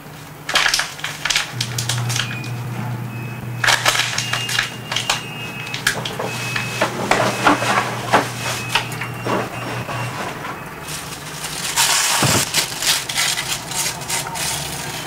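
Plastic and paper waste being crushed and crinkled close up: dense irregular crackling and snapping, with a louder rush of crumpling about twelve seconds in.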